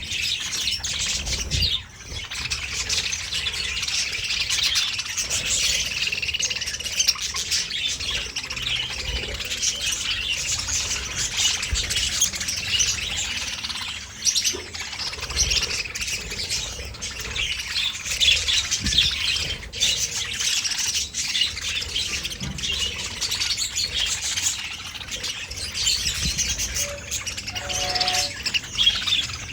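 A flock of budgerigars chattering, with many overlapping chirps and squawks that never let up.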